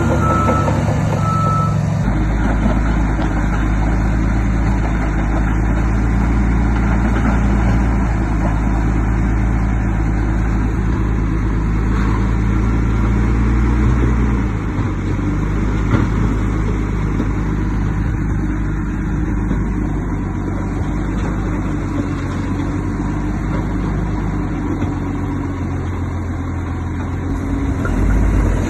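Heavy diesel earthmoving machinery running steadily under load, with a reversing alarm beeping a few times at the start. The engine note shifts about two seconds in and again about halfway through.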